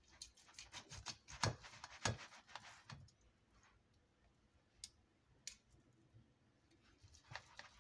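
Faint clicks and short scrapes of a metal knife and fork cutting roast chicken against a plastic takeaway tray: a quick run of them over the first three seconds, two single clicks in the middle, and a few more near the end.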